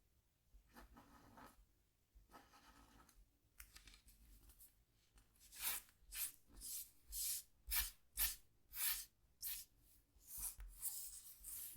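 Scratch tool scraping the coating off a scratchboard: faint short strokes at first, then from about five seconds in a run of louder scrapes, about two a second.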